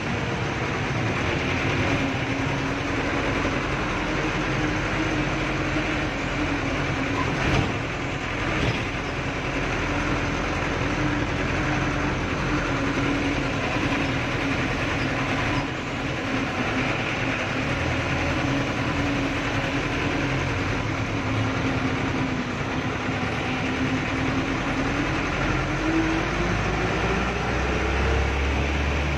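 Mitsubishi 120 PS diesel bus engine running under way, heard from inside the cabin with road noise. The engine note holds fairly steady, then rises near the end as the bus pulls harder. Two short knocks come about seven and a half and nine seconds in.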